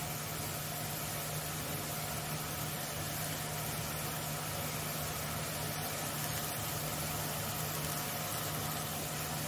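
Boondi drops of besan batter frying in hot oil in a kadhai: a steady sizzle, with a low steady hum underneath.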